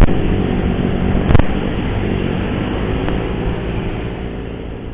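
Motorcycle riding noise, wind and engine, picked up by an external mic at the chin of a helmet: a steady rumble with one sharp knock about a second and a half in, fading down near the end.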